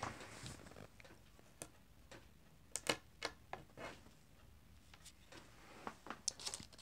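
Faint, irregular clicks and taps, loudest in a cluster about three seconds in and picking up again near the end.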